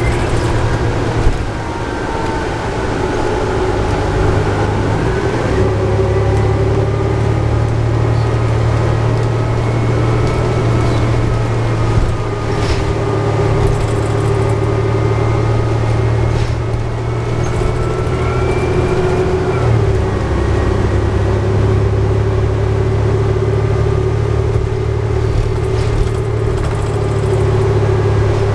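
Cabin sound of a New Flyer D60LFR articulated bus on the move: its Cummins ISL9 inline-six diesel and Allison B500R automatic transmission running with a steady low drone and a higher whine that rises in pitch at times. The engine note changes abruptly about two-thirds of the way through.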